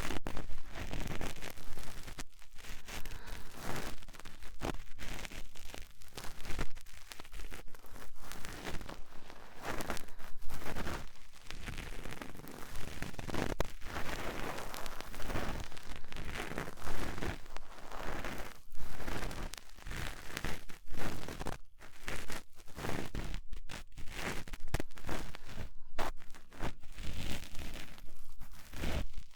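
Cotton swab rubbing and scraping in the ear of a 3Dio binaural microphone: a close, unbroken run of irregular scratchy strokes.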